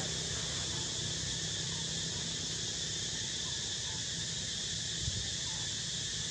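Steady outdoor insect chorus, a continuous high-pitched drone without pauses, with one small knock about five seconds in.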